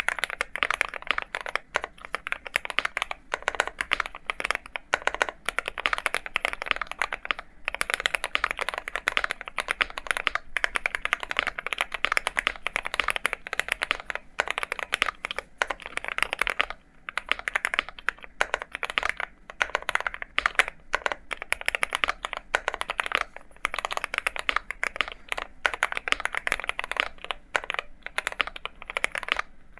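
Continuous fast typing on an Akko MonsGeek M1 mechanical keyboard with Gateron G Pro 3.0 Yellow linear switches: rapid key clacks with a few brief pauses.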